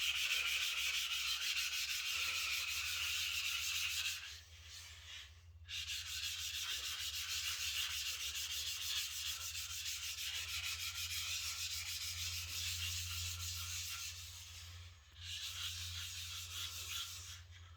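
Wet scraping and rubbing strokes on a finishing whetstone, working up a slurry on its surface. The strokes run on steadily with two short breaks, about four seconds in and about fifteen seconds in, and stop just before the end.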